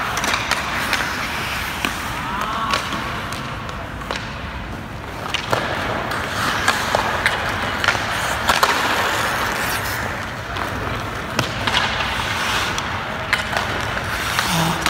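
Ice hockey skate blades scraping and carving on the ice in swelling hisses, with repeated sharp cracks of sticks striking pucks and pucks hitting the goalie's pads and stick.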